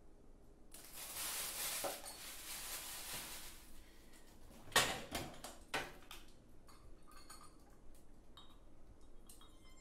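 A few seconds of rustling hiss, then a sharp knock followed by a second knock and several lighter clinks and taps, with tuned music beginning right at the end.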